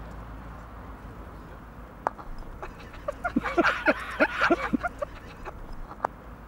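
An animal calling: a quick run of short pitched calls about three seconds in, with a sharp click shortly before it and another near the end.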